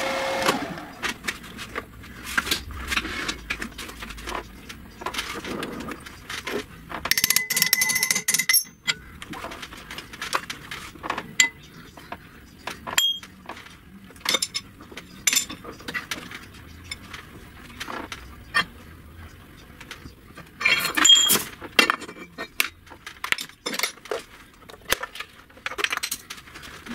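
Irregular metallic clinks, clanks and knocks as steel parts are handled and set down on a metal lathe: the motorcycle steering yoke and its shaft, and the induction heater's fittings. A few strikes ring briefly.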